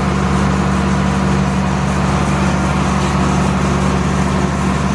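Tractor running a PTO-driven H&S feed mixer: a loud, steady machine drone with a deep hum underneath.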